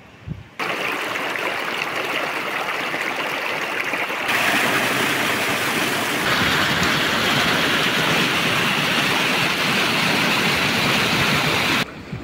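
Rushing river water: a loud, steady hiss that cuts in suddenly about half a second in, jumps louder twice, and cuts off near the end.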